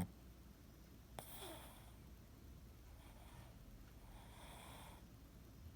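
Faint, soft snoring breaths of a sleeping Boston terrier, about one every second and a half, with a tiny click about a second in.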